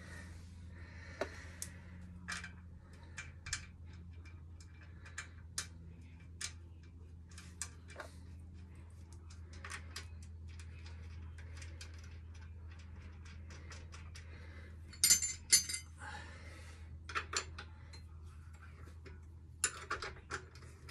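Scattered metallic clicks and clinks of a hand tool working the rear shock absorber's top mount fixing on a Triumph motorcycle, with louder clattering bursts about fifteen seconds in and near the end, over a low steady hum.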